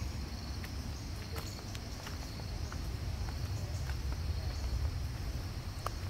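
Footsteps crunching on a dirt and rock trail, scattered short steps over a steady low rumble, with insects trilling steadily in the background.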